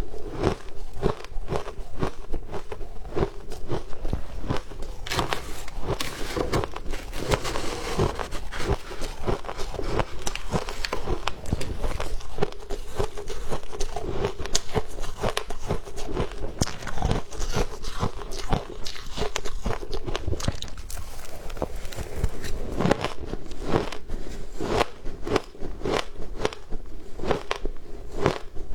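Shaved ice being bitten and chewed: a steady run of crisp crunches and crackles.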